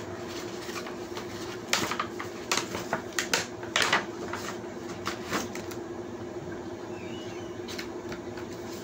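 Crinkling and rustling of a clear plastic box and paper packaging being handled as foam Nerf rocket darts are pulled out, with a cluster of sharp crackles and clicks between about two and four seconds in.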